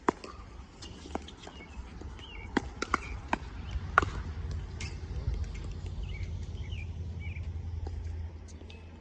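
A run of sharp hits and bounces from a ball in play, irregularly spaced over the first four seconds, with birds chirping and a low rumble building through the middle.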